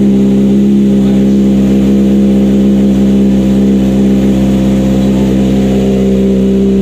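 Kawasaki ZX-25R's 250 cc inline-four running steadily through an R9 full titanium exhaust system, held at a constant engine speed while it warms up from cold.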